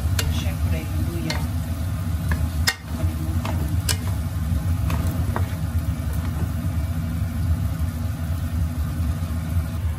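A wooden spatula stirs and scrapes chunks of young jackfruit in a nonstick wok as they fry, with sharp taps against the pan mostly in the first half. A light sizzle sits over a steady low hum.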